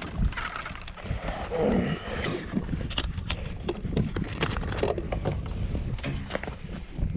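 Hooked bass thrashing and splashing at the surface beside a kayak, then repeated knocks and rattles of rod and gear against the hull as the fish is brought aboard.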